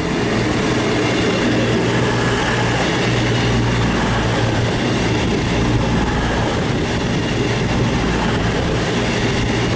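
Class 221 Super Voyager diesel-electric multiple unit passing slowly, its underfloor diesel engines giving a steady drone over the rumble of the train.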